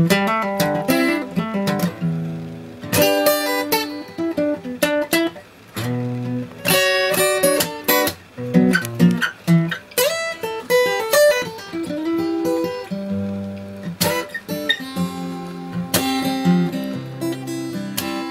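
Instrumental acoustic guitar music, single plucked notes mixed with strummed chords.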